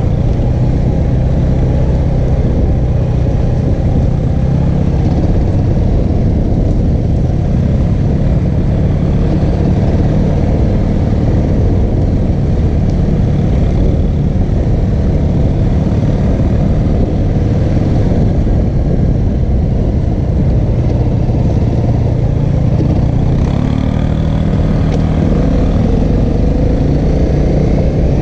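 2014 Honda CRF250L's single-cylinder four-stroke engine running at low trail speed, its pitch shifting with the throttle and climbing near the end.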